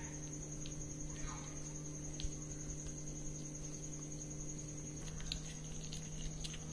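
Yellow plastic spoon stirring glue into slime in a ceramic bowl: faint stirring with a few light taps, over a steady low hum and a steady high-pitched whine.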